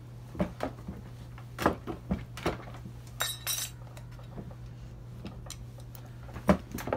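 Irregular metallic clinks and knocks from a hand working a Durston DRM C100 jewellery rolling mill, with a brief rasping burst about three seconds in. A steady low hum runs underneath.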